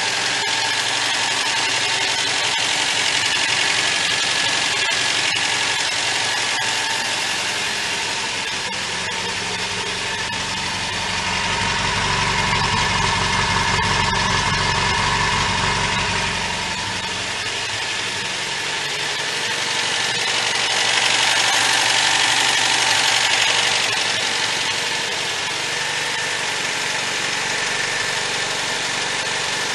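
1977 MGB's 1.8-litre B-series four-cylinder engine running steadily, growing louder for a few seconds twice. The engine is running well: the car's only known problem is its wiring.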